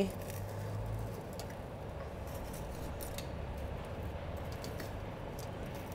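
Faint, scattered clicks and clinks of metal kitchen tongs against the roasting tray and oven rack as they are worked into a roast goose's cavity, over a low steady hum.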